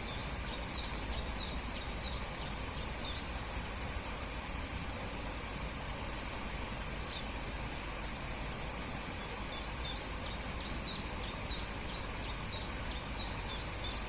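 Steady rush of a waterfall. Over it a small songbird sings two phrases of quick repeated high notes, each sliding downward, at the start and again from about ten seconds in, with one lone note near the middle.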